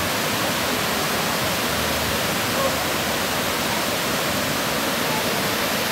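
Waterfall close by: a steady, unbroken rush of water falling over rock.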